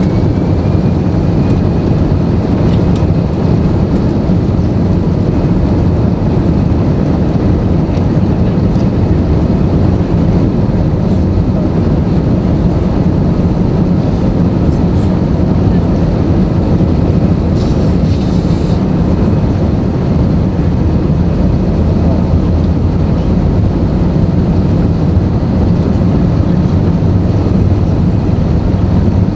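Airbus A320 cabin noise at a window seat over the wing, jet engines at high thrust for the takeoff roll: a loud, steady low rumble of engines and runway that holds level throughout.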